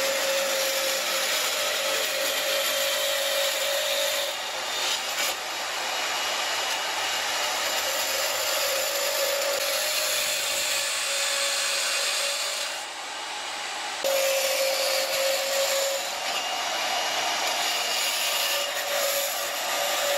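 Metal-cutting band saw running and cutting through a brass plate: a steady whine with the hiss of the blade in the metal. It eases off briefly a couple of times as the piece is repositioned.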